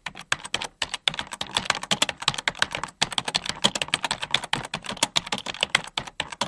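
Fast typing on a computer keyboard: a dense, uneven run of key clicks with a few short pauses, one about a second in and one about three seconds in.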